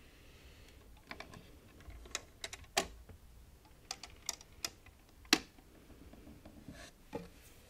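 Irregular sharp clicks and small knocks from hands working a small wooden box with a raised lid, a few in quick succession, with two louder knocks near the middle.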